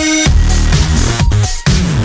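Electronic dance music with a heavy, repeating bass beat and sliding synth notes.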